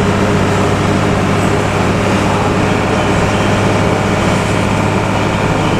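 Moving bus heard from inside the passenger cabin: the engine runs steadily under an even hiss of road and tyre noise.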